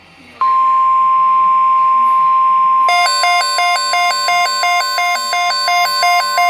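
Emergency alert tones: a single steady weather-radio alarm tone comes on about half a second in, and about three seconds in a rapidly alternating, many-toned beeping pattern starts over it, switching two or three times a second.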